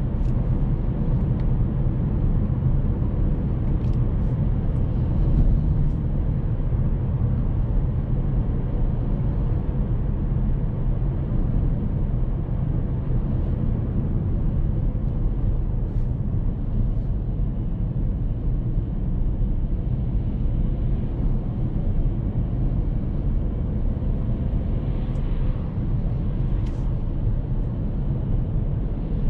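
Hyundai Kona N on the move at a steady pace: an even drone of its 2.0-litre turbo four-cylinder engine and road noise, with no revving.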